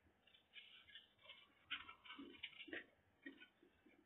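Faint chewing and wet mouth smacks of a person eating, with small irregular clicks and soft bumps roughly twice a second.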